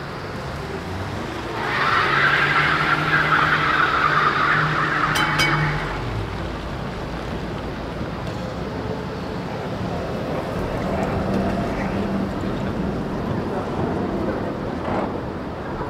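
Vintage Ringhoffer tram rolling past on rails, its wheels and running gear making a steady rumble. For about four seconds early on there is a louder, noisier stretch, with a short sharp sound at its end.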